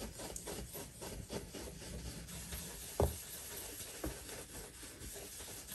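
Blending brush rubbing ink through a plastic stencil onto cardstock: soft, repeated brushing strokes, with a light knock about three seconds in and another about a second later.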